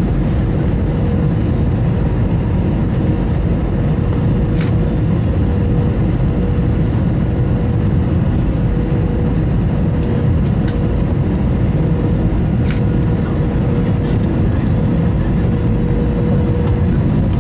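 Cabin noise of an Airbus A321-200 landing: a steady, loud rumble of engines and airflow with a constant humming tone over it. Three sharp clicks come about five, eleven and thirteen seconds in.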